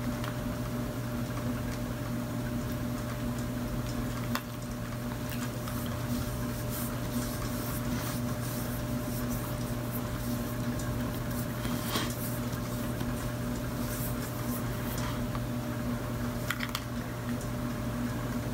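Steady low electrical hum, with a few faint taps and rustles of hands handling makeup.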